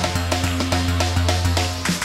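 Background music with a steady beat and a short repeating melodic figure.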